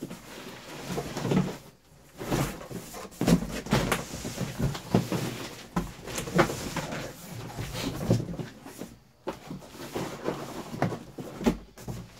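Large cardboard shipping carton scraping, rubbing and knocking as it is pulled up and off a boxed subwoofer, in a string of irregular scuffs and bumps.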